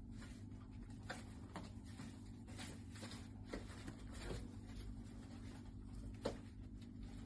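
Faint, scattered light scratches and clicks over a steady low hum, with one sharper click about six seconds in.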